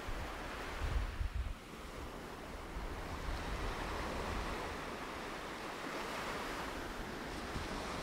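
Small Caribbean waves breaking and washing up a sandy beach, a steady surf hiss. Wind buffets the microphone with low rumbles in the first second or so.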